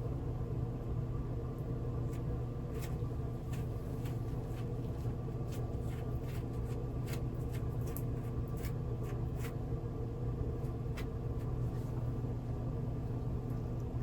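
Scissors snipping in scattered short clicks over a steady low electrical hum.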